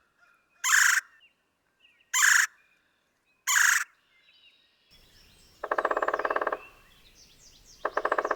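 Red-bellied woodpecker calls: three short, noisy calls about a second and a half apart, then two longer rolling, rapidly pulsed calls in the second half over a faint hiss.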